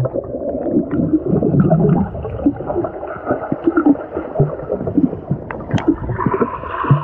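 Muffled underwater bubbling and gurgling in a swimming pool, heard through a submerged camera, with the top end cut off and irregular crackles of moving water and bubbles.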